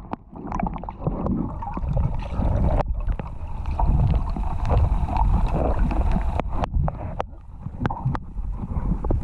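Wind buffeting the microphone over water sloshing and gurgling against the hull of an anchored sailboat, with scattered small knocks.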